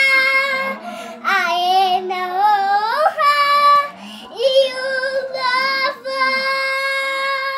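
A young girl singing in a high voice, sliding up into notes in the first half, then holding one long steady note for about three seconds near the end.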